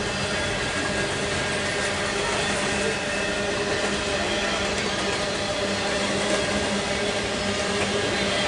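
Intermodal freight train rolling steadily past, flatcars loaded with piggyback trailers and containers: a continuous rumble of steel wheels on rail with a faint steady whine over it.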